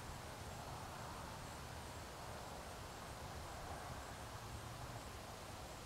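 Faint, steady outdoor background noise with a low hum, with no distinct event standing out.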